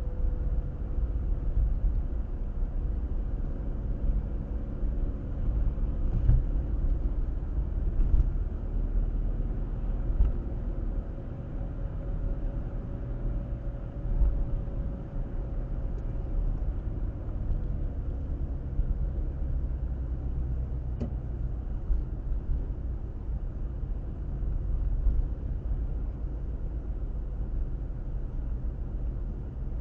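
A car driving along a road: steady low tyre and engine rumble with a faint tone that drifts a little in pitch, and a few light bumps.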